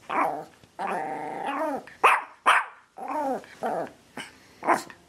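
A dog vocalising: several short, sharp barks, two about two seconds in half a second apart and one near the end, between longer drawn-out calls that drop in pitch as they end.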